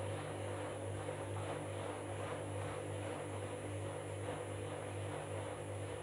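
Candy front-loading washing machine tumbling a load of bedding during its wash: a steady motor hum with the swishing of the wet load turning in the drum.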